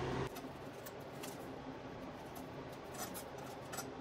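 A steady machine hum cuts off a moment in. After it come faint, scattered clicks and rubbing as a rubber hose and small plastic fittings are handled.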